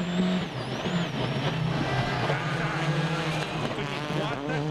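2005 World Rally Car's turbocharged engine running hard at high revs on a stage, its note holding steady and then briefly dropping and changing pitch near the end, as at a gear change or lift.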